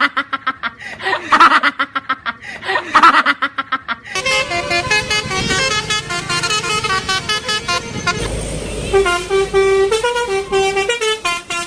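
Basuri 'telolet' bus horn playing a tune. It begins with a quick string of short toots rising and falling in pitch, then about four seconds in moves to a melody of held notes stepping from pitch to pitch.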